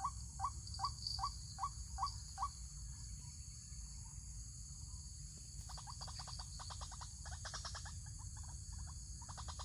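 White-breasted waterhen (ruak-ruak) calling: evenly repeated call notes, about two and a half a second, for the first couple of seconds, then after a lull a faster stuttering run of notes from about six seconds in, breaking off and starting again near the end. A steady low rumble lies underneath.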